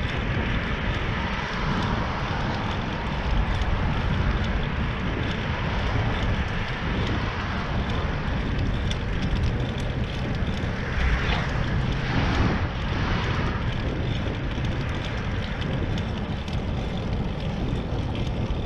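Steady wind rush on the microphone over a low rumble of a bicycle's tyres rolling on asphalt, with a brief louder rush from about eleven to thirteen seconds in.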